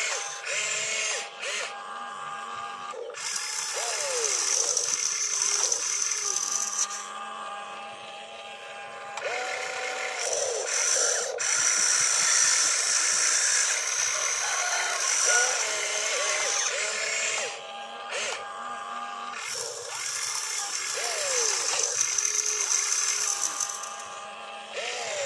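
Electric motors of an RC excavator whining as the boom, arm and bucket move. The whine starts and stops in short runs, its pitch gliding up and down.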